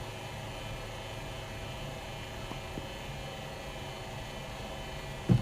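Steady mechanical hum from a cricket bowling machine running between deliveries. A sharp thump comes right at the end as the next ball is fired.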